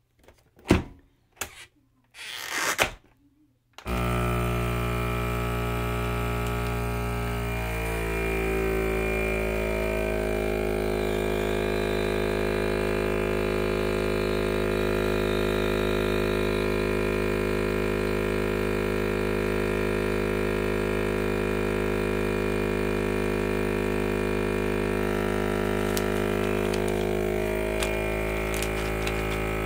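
FoodSaver vacuum sealer's pump starting after a few clicks about four seconds in and then running with a steady drone for over twenty seconds without finishing its cycle, much longer than it should: the machine is failing to draw the bag down and seal it. A few clicks near the end.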